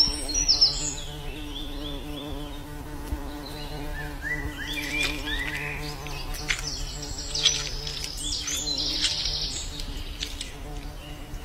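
Honeybees buzzing in a steady hum. Birds chirp in short rising runs now and then over it.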